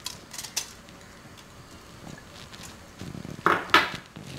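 Faint light taps as fenugreek seeds are tipped from a small glass bowl into an aluminium pressure cooker of rice. About three and a half seconds in, two quick clinks as the empty glass bowl is set down beside other glass bowls on the counter.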